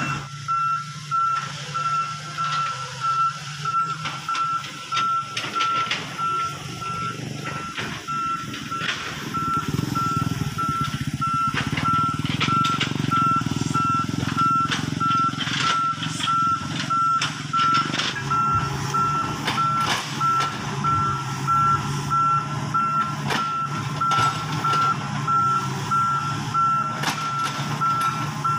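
Volvo wheeled excavator working, its warning alarm beeping in an even steady train over the diesel engine rumble. In the middle a motorcycle passes through floodwater, adding its engine to the rumble.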